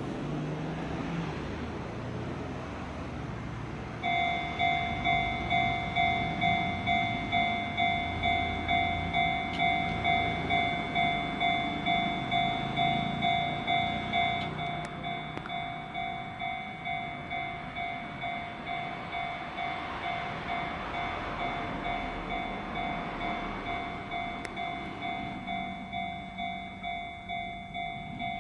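Japanese electronic level-crossing bell starting about four seconds in, ringing a steady repeating ding a little under twice a second; the bell drops in volume about ten seconds later. A Keihan 600-series train passes the crossing in the middle part.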